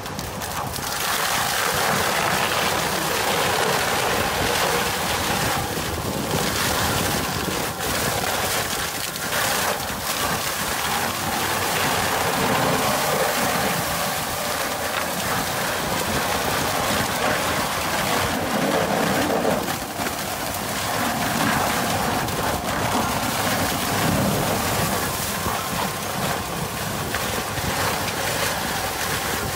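Tractor-mounted Seppi Miniforst shredder working through pruning branches and brush, its rotor chewing the wood into fine chips over the tractor's engine. Loud, steady noise that dips briefly about two-thirds of the way through.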